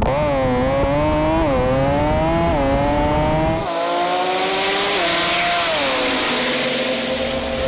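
Rotary-engined drag car accelerating hard at full throttle, its pitch climbing and then dropping sharply at each quick gear shift, about one a second. About halfway through the sound changes to the car heard from trackside as it runs past, with a wide hiss over the engine.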